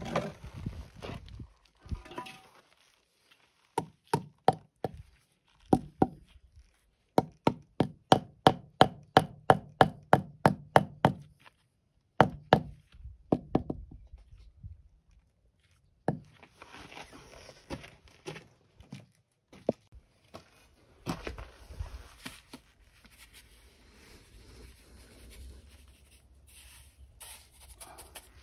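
Rubber mallet knocking a concrete block down into its mortar bed to level it: a long series of dull taps, quickening to about three a second in the middle. After that, quieter scraping of a trowel working wet mortar on the concrete.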